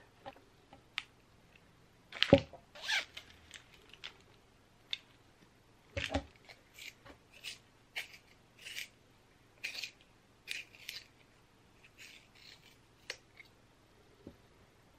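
Notebooks and stationery handled on a table: paper rustling and small clicks and scrapes. There are two sharper knocks, about two seconds in and about six seconds in, like notebooks being set down.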